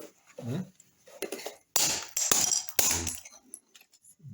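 Several sharp knocks and cracks as the old damaged double wall socket is struck to break it off the wall, the loudest blows coming about two and three seconds in.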